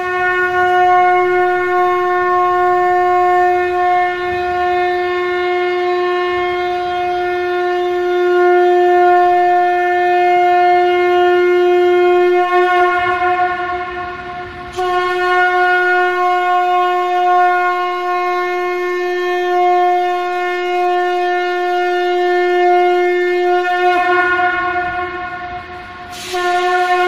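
A shankh (conch shell trumpet) blown in a long, steady note at one unchanging pitch, rich in overtones. The note sags twice, about halfway through and near the end, and swells back to full strength each time.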